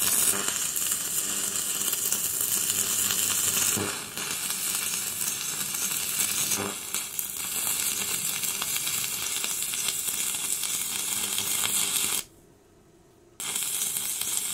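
Stick (MMA) welding arc from a HITBOX HBM200 inverter welder, a steady crackling sizzle as the electrode runs a bead on thick steel plate. It cuts out suddenly about twelve seconds in and strikes up again about a second later.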